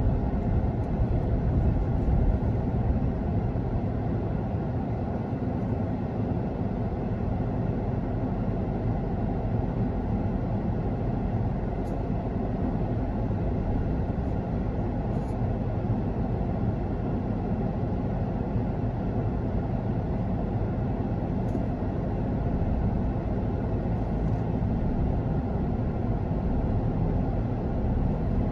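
Steady low rumble inside a car's cabin: the engine and tyre and road noise of a car creeping through city traffic.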